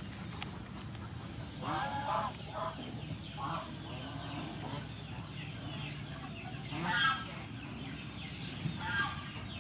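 Chickens clucking in a few short calls, the loudest about seven seconds in, over a steady low hum.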